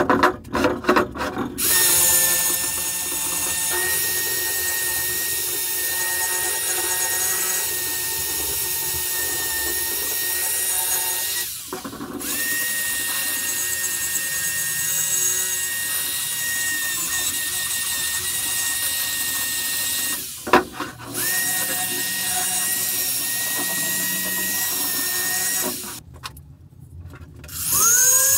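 Corded electric drill running a small wire brush against the rusty vise body, scouring off rust with a steady whine. It runs in three long stretches with brief stops between them. Near the end an angle grinder spins up.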